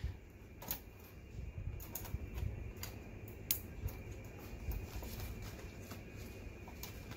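Faint, irregular small clicks and taps of metal hanging-kit clips being hooked onto the corner mounts of an LED grow light panel's aluminium housing.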